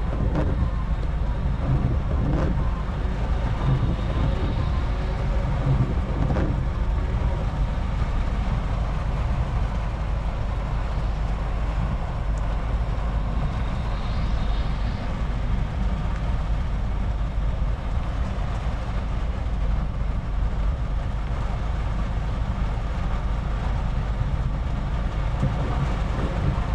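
Heavy rain pelting the cab and windscreen of a lorry, heard from inside the cab, over the steady low rumble of the truck's running engine.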